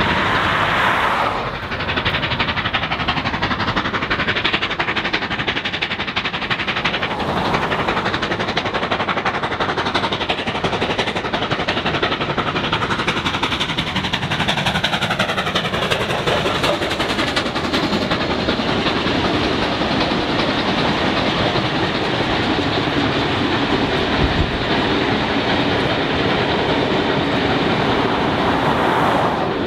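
Steam locomotive 3801's passenger train running past, its wheels clicking over the rail joints, with a car going by on the road about a second in.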